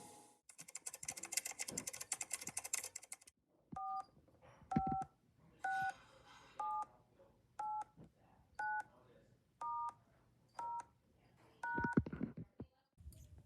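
Touch-tone telephone keypad dialing a number: about nine short two-note beeps, roughly one a second, each at a different pitch pair. A burst of rapid clicking comes before them, and a couple of knocks near the end.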